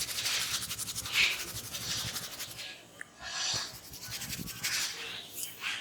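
Hands rubbing quickly over hair and skin in a massage, a fast, even run of scratchy strokes for about two and a half seconds, then slower, scattered rubs.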